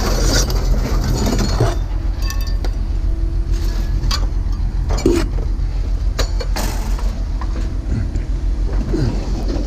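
Engine rumbling steadily, with scattered clinks and knocks of scrap metal being handled.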